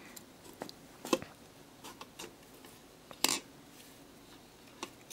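Scattered light metallic clicks and clinks as a connecting rod and its big-end cap are handled on the crankshaft of a stripped Toyota 3S-GE engine. There are about six in all, the sharpest about a second in and the loudest a little after three seconds.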